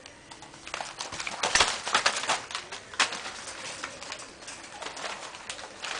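Nine-week-old West Highland White Terrier puppies scrambling on newspaper inside a wire pen: a quick run of scratchy clicks and crinkles starting about a second in and lasting a couple of seconds, then a few scattered single clicks.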